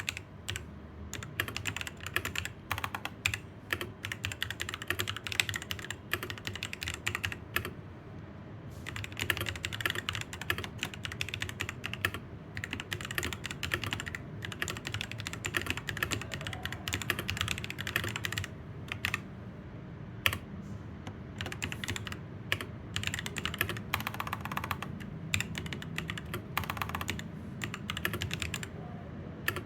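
Fast continuous typing on a mechanical keyboard fitted with Akko V3 Pro Cream Blue switches, a dense run of key clicks and keystrokes, with short pauses about 8 and 19 seconds in.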